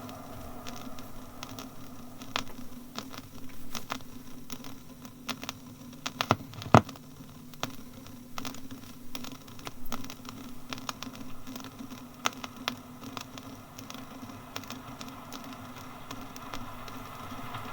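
Surface noise of an old gramophone disc: irregular crackles and pops over a faint steady hum and hiss, with one sharp loud pop about seven seconds in.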